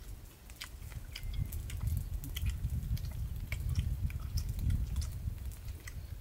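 People chewing and biting into stir-fried tokay gecko: many small, irregular crunchy clicks from the mouth, over a steady low rumble.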